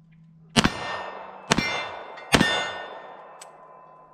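Three pistol shots from a Polymer80 PF940V2 Glock 17–pattern build, a little under a second apart, each followed by metallic ringing that fades slowly, the sound of steel targets being hit.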